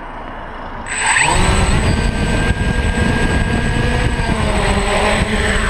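DJI F550 hexacopter's six brushless motors and propellers spinning up about a second in with a quick rising whine, then running steadily with a loud buzzing drone and a thin high whine, the craft still on the ground before lift-off.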